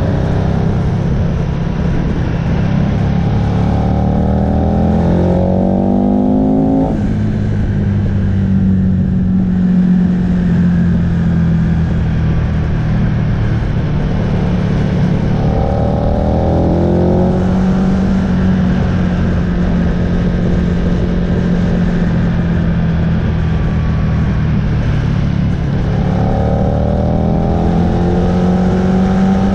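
Aprilia RSV R sportbike's engine heard from on board, running at a steady cruise and pulling three times with a rising note, about two, fifteen and twenty-six seconds in; the first pull cuts off suddenly about seven seconds in. Wind rushes over the microphone.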